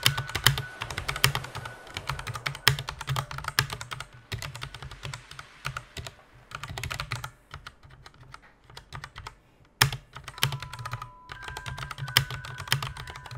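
Typing on a Koodo mechanical keyboard with Otemu red linear switches: a fast, irregular run of keystrokes. There is a lull around nine seconds in, broken by one louder keystroke, before the typing picks up again.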